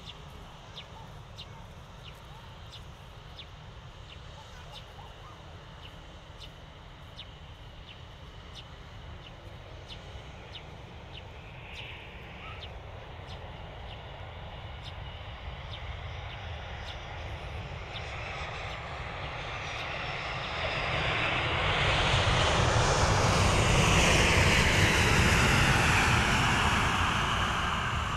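Jet airliner passing close by. Its engine noise builds slowly for about twenty seconds, peaks, then starts to fade with a falling pitch.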